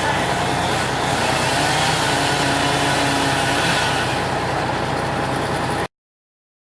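Strong storm wind buffeting a running vehicle, heard from inside as a loud, steady rushing noise; it cuts off abruptly about six seconds in.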